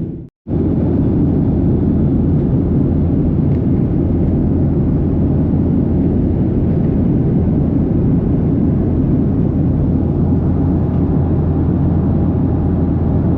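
Steady low rumble of a moving vehicle's cabin noise, with a brief cut to silence just after the start.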